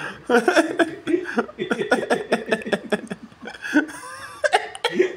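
People laughing: a long run of short, quickly repeated chuckles.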